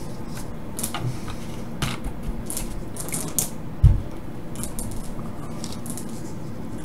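Handling noises on a workbench: scattered clicks, taps and short scrapes, with one loud thump about four seconds in.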